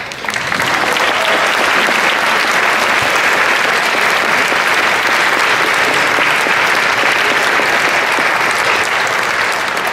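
Audience in a large hall applauding steadily, a sustained dense clapping after a speaker thanks them.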